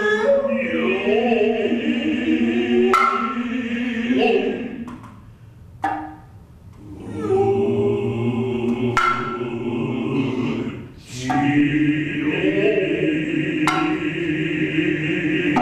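Noh music: the jiutai chorus chanting in low unison against the high, sustained tone of the nohkan bamboo flute, punctuated by sharp strikes on the tsuzumi hand drums. The chant drops away briefly about a third of the way in, then resumes.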